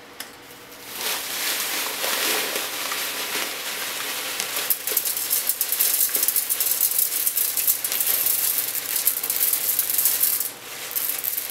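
Granules of activated carbon being poured into a filter tube onto steel wool: a continuous dry rattling hiss that starts about a second in and breaks off briefly near the end.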